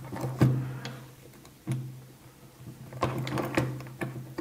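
Small, scattered clicks and knocks of metal and plastic parts as a Märklin S3/6 model locomotive chassis is handled and worked apart by hand, with a cluster of them near the end.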